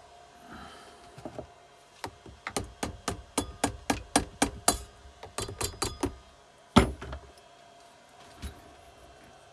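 Hand tools working on a Keeway TX125 engine: a quick run of sharp taps, about four a second, then one louder knock about seven seconds in.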